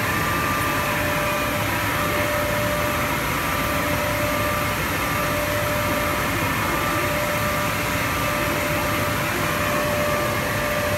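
Diehl marine canvas CNC cutter running: a steady whirring machine hum with a constant high tone, as its gantry head travels over the canvas.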